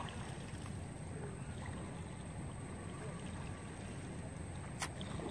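Steady low rumble of a river's ambience, water moving around a bamboo raft, with one sharp click near the end.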